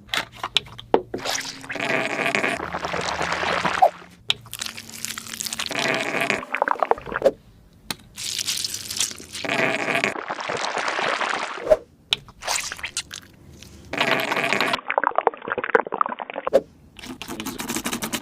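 Toothpaste slime being squeezed, stirred and kneaded: wet, sticky squelching in bursts a second or few long, with short pauses between.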